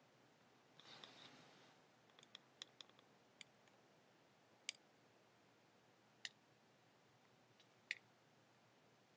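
Near silence, broken by a short rustle about a second in and then a scatter of sharp clicks: a quick run of several, then single ones every second or two.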